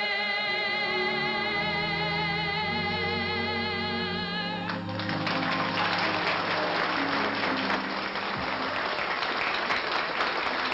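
A female singer holds the final note of a ballad with a wide vibrato over orchestral accompaniment, and it stops about four and a half seconds in. Audience applause then breaks out and carries on as the band's last chord fades.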